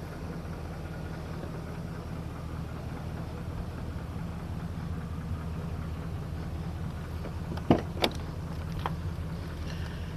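2002 Chevy Silverado Z71's 5.3 V8 idling steadily with a low hum. Near the end come two sharp clicks as the driver's door latch is pulled and the door swings open.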